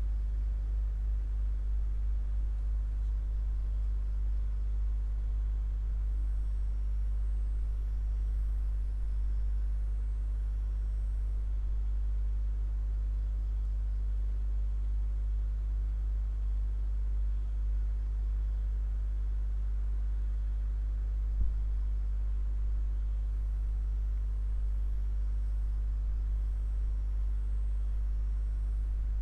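A steady low hum, with a single click about three-quarters of the way through and faint high chirps in two short stretches.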